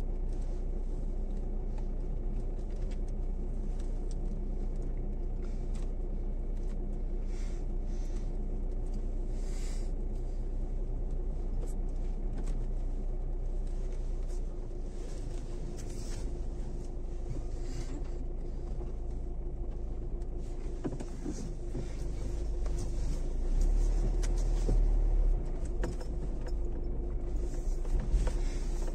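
Dacia Duster driving slowly along a dirt forest track, heard from inside the cabin: a steady engine hum and a low rumble from the tyres, with scattered clicks and knocks. The rumble swells about three-quarters of the way through and again near the end.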